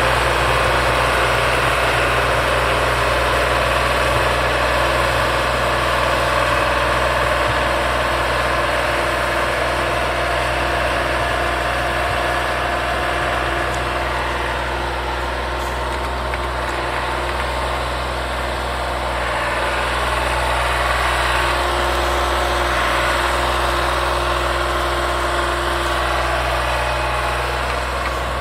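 MS65 tractor's diesel engine running steadily under load while it drives a rotary tiller through the soil. The engine grows a little fainter in the middle as the tractor moves away, then comes back up.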